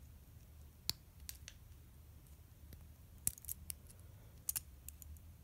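Scattered small, sharp plastic clicks and taps, about ten of them, as a strap's plastic buckle clip is handled and snapped into place, over a faint low hum.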